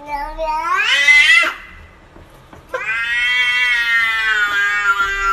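A domestic cat meowing twice in a human-like way. The first call rises in pitch and breaks off about a second and a half in, sounding like "no". The second starts near three seconds in and is a long drawn-out call that slowly falls, sounding like "whyyy".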